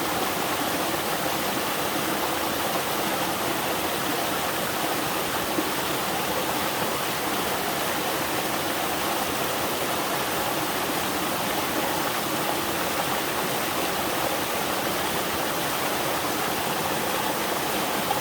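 Small waterfall in a mountain valley stream, water pouring and splashing in a steady, unbroken rush.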